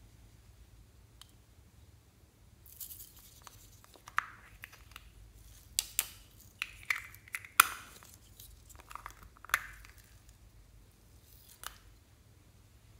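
Small plastic toy being handled by hand: a string of sharp plastic clicks and knocks, with a short rustle just before them and the loudest click about halfway through.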